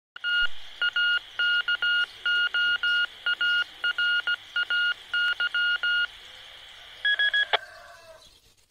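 Signal from a repeater about 200 km away, heard through a handheld VHF FM transceiver's speaker: over a steady hiss, a string of long and short beeps at one pitch, then three short higher beeps and a sharp click about seven and a half seconds in as the signal drops.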